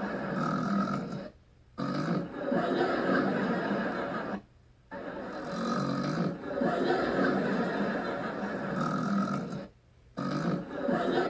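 A girl snoring in long snores of about three seconds each, with short breaks between them.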